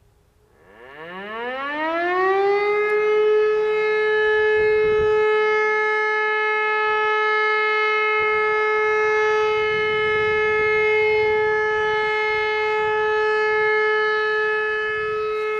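E57 electromechanical siren spinning up with a rising howl, reaching its full steady tone after about two and a half seconds and holding it without falling away. Its contactor is stuck closed, so the siren keeps running.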